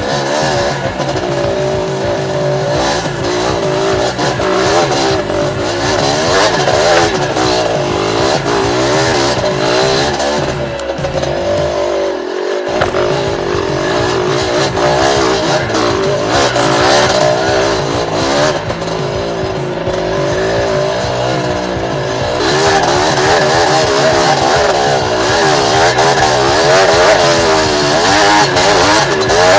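Yamaha DT125's two-stroke single-cylinder engine revving up and down as the dirt bike rides a rough trail, over background music with a steady bass line; the bass drops out briefly about twelve seconds in.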